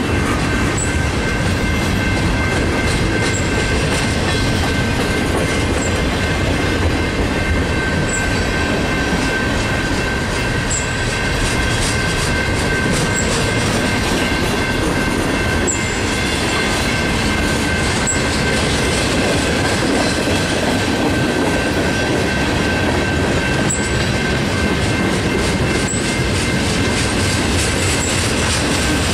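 Freight train cars rolling past steadily, wheels clicking over rail joints at a slow, even rhythm. A steady, high wheel squeal rings over the rumble throughout.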